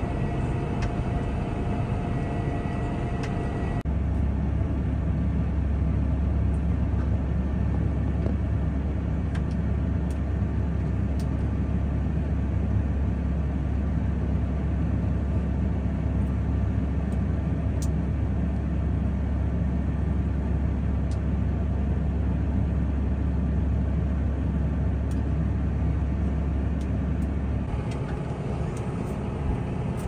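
Tractor engine running steadily under way. A strong, deep low hum sets in about four seconds in and drops away near the end.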